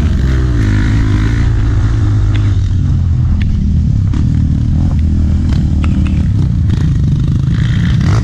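Honda CRF four-stroke single-cylinder trail motorcycle engine running steadily at low revs, with a few sharp clicks and knocks from the bike over rough ground. The revs climb again right at the end.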